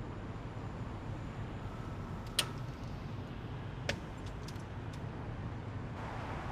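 Steady low rumble of a car driving, heard from inside the cabin. A sharp mechanical click comes about two and a half seconds in, another about a second and a half later, then a few faint clicks: the buttons of a car cassette deck being pressed.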